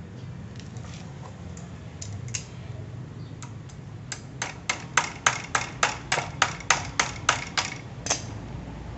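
A quick, even run of sharp metal clicks or taps, about five a second, starting about four seconds in and lasting some four seconds. It comes from hand work with locking pliers on the metal stand of a homemade drill press.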